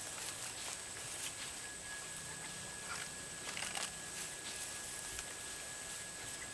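Quiet outdoor ambience: a steady high-pitched hum, with scattered light rustles and clicks.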